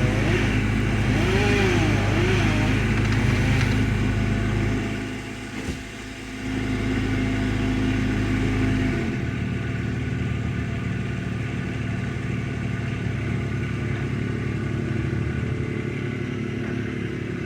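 Engine of powered tree-work equipment running loudly, its pitch rising and falling under changing load, dipping briefly about five seconds in, then running steadily at a lower pitch from about nine seconds in.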